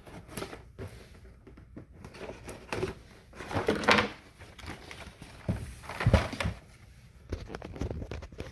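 Cardboard case and carded Hot Wheels cars being handled: rustling and scraping of cardboard and plastic blister packs, with a few knocks. The loudest handling comes about four seconds in and again about six seconds in, the second with a dull knock.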